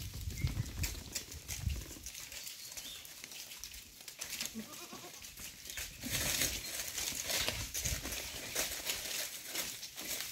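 Herd of goats on the move, with occasional goat bleats over many small clicks and rustles. A low rumble in the first two seconds and a louder hiss from about six to nine seconds in.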